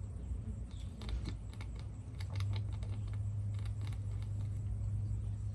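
Scattered light clicks and taps of small objects being handled, with a steady low hum coming in about two seconds in.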